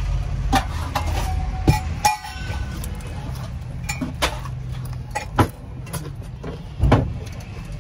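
A steady low engine rumble with scattered sharp clicks and clinks of dishes and utensils.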